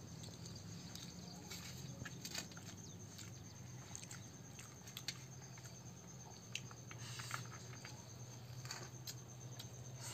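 Faint eating sounds: scattered soft clicks and scrapes of fingers mixing and squeezing rice on a steel plate, and chewing.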